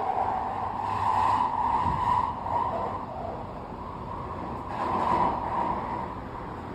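London Underground train running, its wheels and motors making a loud whine centred in a mid-high band that swells about a second in and again around five seconds, then eases. Very noisy.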